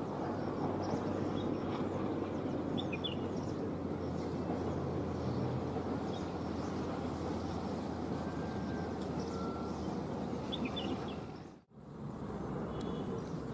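Steady distant engine rumble with a few short bird chirps over it; the sound drops out for a moment near the end and then resumes.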